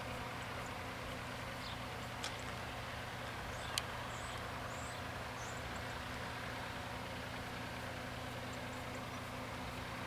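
Steady outdoor background hiss and low hum at a closed level crossing, with a sharp click a little before four seconds in and a few faint high chirps just after it.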